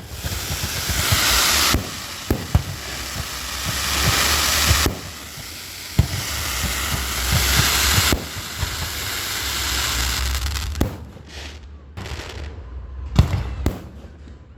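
Loud hissing blasts, four in a row, each lasting a few seconds and cutting off abruptly, with sharp cracks and pops among them; near the end come several shorter separate bursts.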